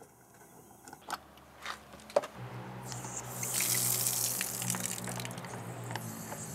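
A few short knocks, then about two seconds in water starts gushing steadily from an opened tap, with a low hum in the pipes underneath: the house plumbing being drained after the main water supply has been shut off.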